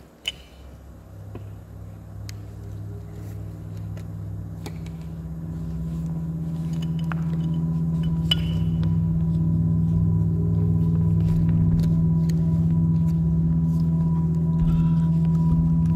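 Low sustained drone from the dance's soundtrack, swelling steadily louder, with a thin high steady tone joining about halfway. A single sharp click sounds just after the start.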